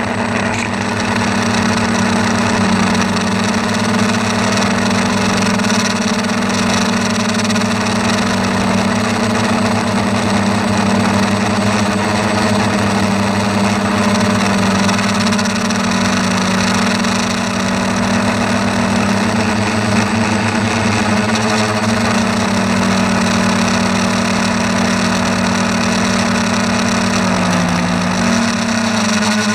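A steady motor hum, its pitch dipping briefly near the end, over a haze of wind noise.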